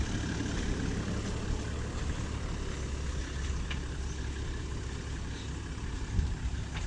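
Four-wheel drive's diesel engine idling steadily, with a short low thump about six seconds in.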